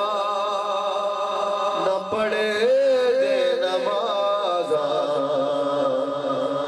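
A man's solo voice singing a Punjabi naat, drawing out long, wavering melodic notes between lines of the verse, with a new phrase beginning about two seconds in.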